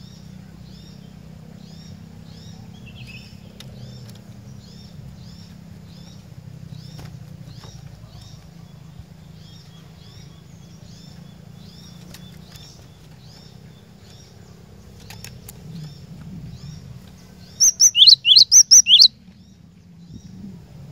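Cinereous tit singing: a long run of short, high notes repeated evenly, about two or three a second, over a steady low hum. Near the end comes a much louder burst of half a dozen quick rising notes.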